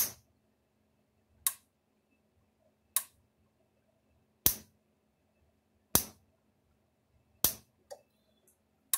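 Fi-Shock XP-15 electric fence charger's high-voltage pulses arcing from the full-power terminal to ground across a screwdriver, one sharp snap about every second and a half, a sign that the repaired charger is pulsing at full power.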